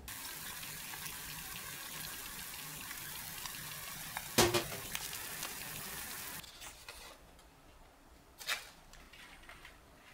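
Eggs frying in a pan with a steady sizzle, and one sharp knock about four seconds in. The sizzle stops after about six seconds, and a softer knock follows near the end.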